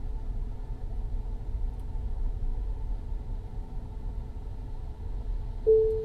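Low steady rumble as the Tesla Model Y creeps forward, then about five and a half seconds in a single beep from the park-assist chime, the proximity warning as the car nears the curb.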